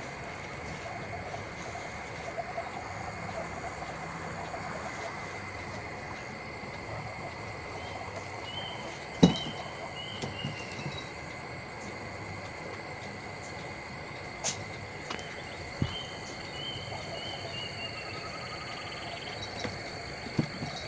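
Foil origami paper being folded by hand, giving a few sharp crinkling clicks, the loudest about nine seconds in. Underneath is a steady high drone and two short runs of falling chirps.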